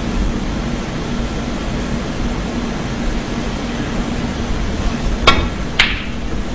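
A snooker shot: two sharp clicks about half a second apart, near the end, as cue and balls strike, over a steady hum in the hall.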